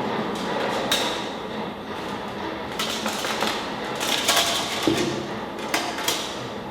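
Irregular knocks and clicks, a few to several a second, over steady room noise: objects handled on a stage.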